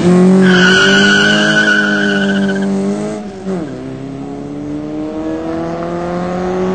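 Hatchback car launching hard from standstill: the tyres squeal for about two seconds as the wheels spin. The engine revs up, drops in pitch with a gear change about three seconds in, then revs up again as the car pulls away.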